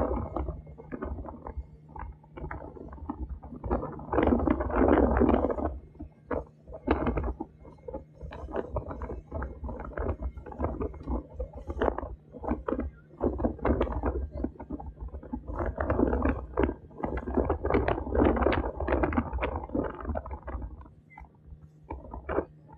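A motorboat's engine drones steadily under the rush and splash of water along the hull. The splashing comes and goes in louder surges, with frequent sharp slaps of spray.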